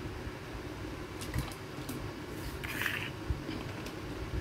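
A person drinking from a plastic water bottle and swallowing: a few soft clicks and gulps, with a short breathy hiss about two and a half seconds in, over a steady low background hum.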